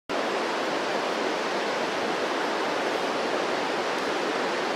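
Steady rushing of flowing water, like a river or waterfall, starting abruptly and holding at one even level.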